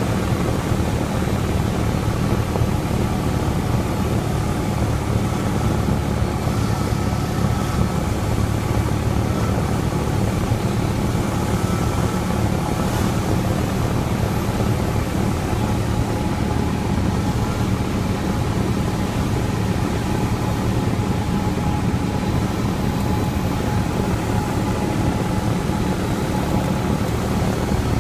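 Single-engine propeller plane's engine and propeller in cruise flight, a steady low drone heard from inside the cockpit.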